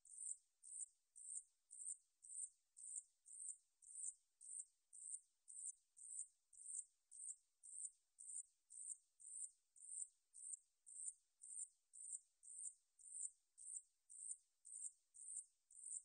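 A 산여치 katydid (Paratlanticus ussuriensis) singing: a faint, high-pitched chirp repeated steadily about twice a second.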